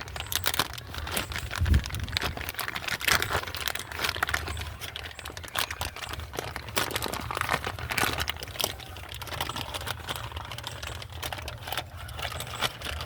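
Hands handling car parts, an irregular run of crinkling, small clicks and rattles.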